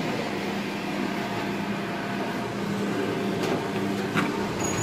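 Pellet boiler running with a steady fan hum. Two short clicks come near the end.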